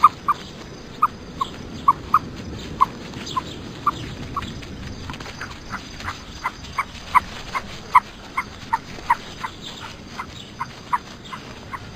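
Ostrich calls: short, high chirps repeated about two to three times a second over a steady background hiss.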